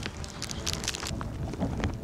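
Wind gusting over the microphone on an exposed mountain ridge, a low uneven rumble, with scattered sharp ticks throughout.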